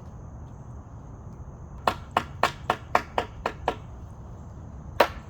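Hammer blows: a quick run of about eight strikes, roughly three a second, then a pause and two more strikes near the end.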